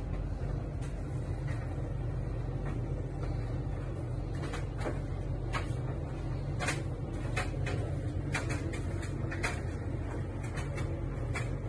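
Domestic cat purring steadily while being scratched, a low rumble, with scattered light clicks and rustles from the scratching hand and the phone being handled.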